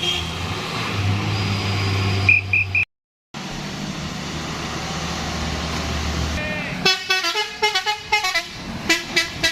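A heavy vehicle's diesel engine runs steadily, with three short high toots a little after two seconds in, then a brief dropout. From about two-thirds in, a bus's multi-tone telolet horn plays a quick run of changing notes.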